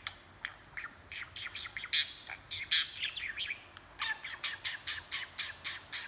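Budgerigar chattering: a quick, continuous run of short chirps, clicks and warbles, with two louder sharp squawks about two seconds and about three seconds in.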